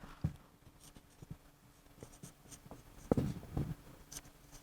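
Faint sounds of writing: a few short scratching strokes, the busiest run about three seconds in.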